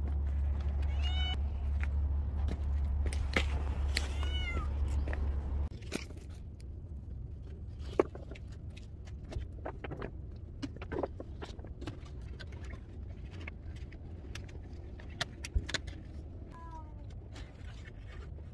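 A cat meowing, twice in the first five seconds over a steady low rumble that cuts off, then faintly again near the end. In between come scattered clicks and crinkles as a clear PVC sheet is fitted over the car's open tailgate.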